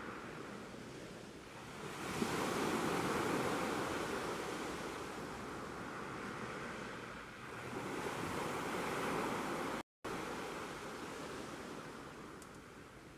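Sea waves breaking and washing up a beach, surging about two seconds in and again around eight seconds, each time ebbing back. The sound cuts out for a split second near ten seconds.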